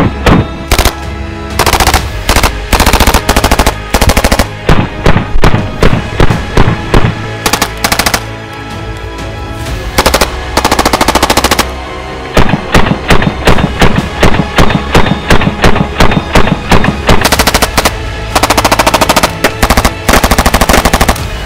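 Thompson 1928A1 submachine gun firing .45 ACP in repeated full-auto bursts of rapid shots, with short pauses between bursts and a lull around the middle.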